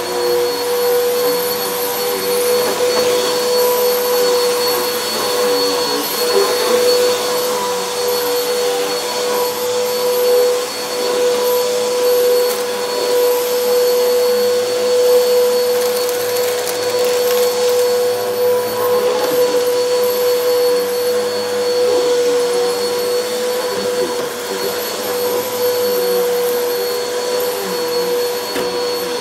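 Helix Turbo upright vacuum cleaner running while it is pushed across carpet, its motor holding one steady pitch over a hiss of rushing air.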